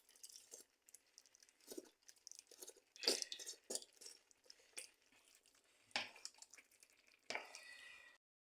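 Wet squishing with scattered knocks and clicks as more parboiled tomatoes are added and stirred into the pan of vegetable sauce. The sharpest knocks come about three, six and seven seconds in, and the sound cuts off abruptly near the end.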